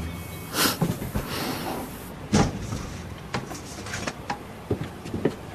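Sound-effect foley of a cupboard door being opened and closed while clothing is fetched. It is a series of separate knocks and clunks with light rustling, the loudest about half a second and two and a half seconds in.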